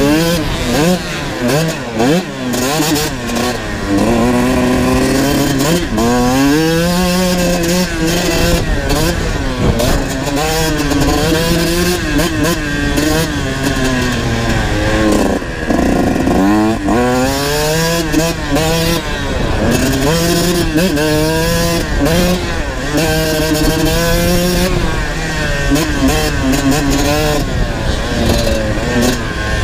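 Kawasaki dirt bike engine heard from on the bike, revving up in rising sweeps and dropping back again and again as the rider accelerates, shifts and rolls off the throttle for the turns.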